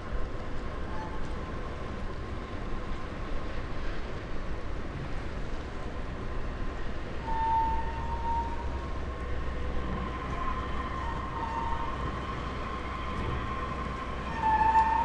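Low, steady rumble of ship engines running on the river, growing stronger about halfway through, with brief high whining tones over it, the loudest near the end as a pilot boat passes close.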